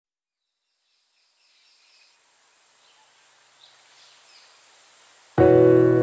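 Faint outdoor ambience fading in, with a few high bird chirps. About five seconds in, a piano chord strikes suddenly and rings on, starting the background music.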